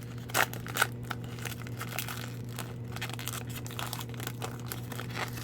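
Plastic trading-card pack wrapper crinkling as it is opened and handled, with two sharper crackles under a second in and a run of small crackles after.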